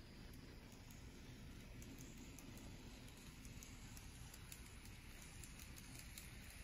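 Faint running of a model Meitetsu 7000 series Panorama Car train passing on its layout track: a low rolling hum with many light, irregular ticks from the wheels on the rails.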